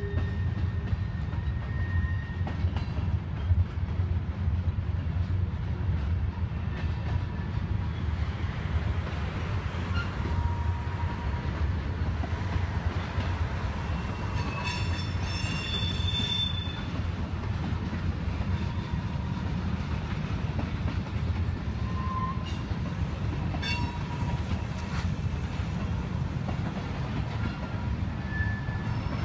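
Freight train of boxcars and tank cars rolling past on an elevated line: a steady low rumble of wheels on rail, with faint thin wheel squeals coming and going and a brief high-pitched squeal about halfway through.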